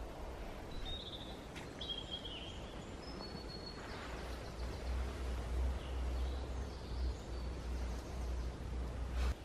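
Woodland birds calling: a few short high chirps and trills in the first few seconds. A low rumble on the microphone grows louder from about halfway through, with a click just before the end.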